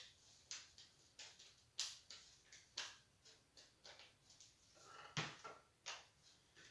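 Scissors snipping construction paper: faint, short, irregular snips about two a second while a small paper shape is cut out.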